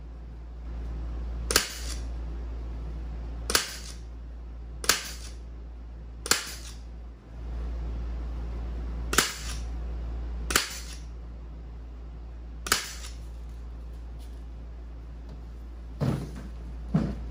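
Pneumatic upholstery gun on an air hose firing fasteners into a canvas seat cover: nine sharp snaps at uneven intervals, the last two close together near the end, over a steady low hum.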